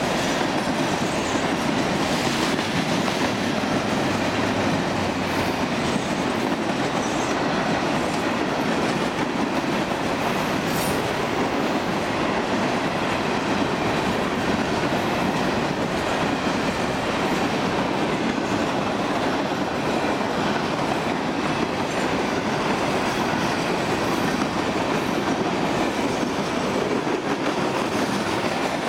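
Bessemer and Lake Erie freight train of empty open-top hopper cars rolling past: steady rolling noise of steel wheels on the rails.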